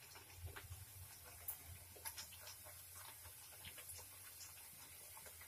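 Faint, irregular crackles and pops of oil as a layered pheni paratha deep-fries on low heat in a kadai.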